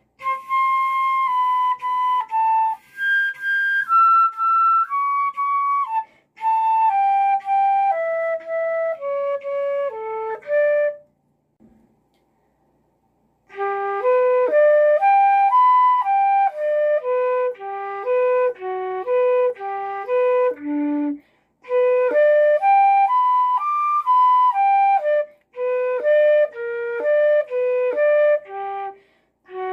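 Solo flute playing a melodic practice passage of separate notes, stepping downward at first. After a pause of about two seconds partway through, it continues with quicker runs up and down.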